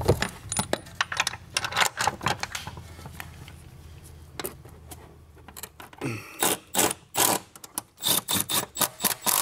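Metal suspension parts and hand tools clinking and clicking as a coilover shock is worked into place in a car's rear wheel well. The clicks are busy at first, go quiet for a few seconds in the middle, then come in a quicker run of sharp clicks near the end.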